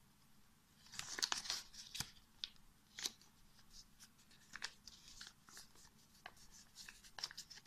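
A sheet of paper crackling and rustling as it is folded and creased by hand, in short irregular crackles, busiest between one and two seconds in.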